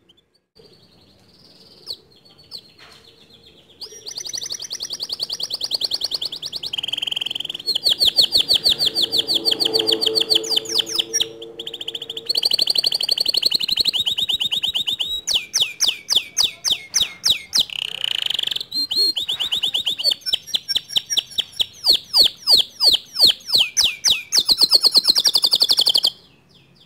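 Male domestic canary singing one long continuous song of rapid trills and rolls, starting about four seconds in after a few faint chirps and stopping abruptly near the end.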